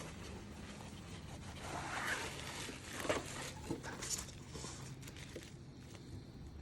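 Packaging being handled, rustling and scraping, with a few sharper scrapes in the middle over a faint steady low hum.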